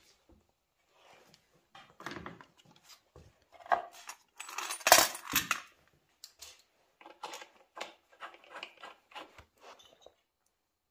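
Small metal parts and tools clinking and clattering as they are handled, with a denser, louder rattle about four to five seconds in.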